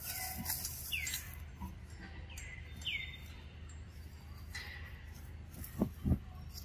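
A bird calling repeatedly: four falling whistled notes in the first three seconds, roughly one a second, each sliding down and settling. Two short dull thumps, the loudest sounds, come near the end over a low steady background hum.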